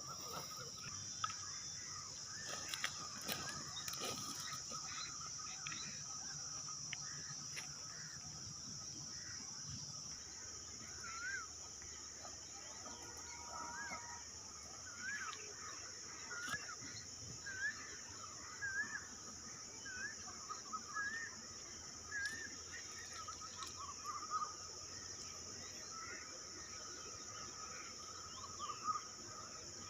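Forest insects keep up a steady high-pitched drone. Over it, a bird gives a series of short, curving chirps, about one a second, for roughly ten seconds in the middle.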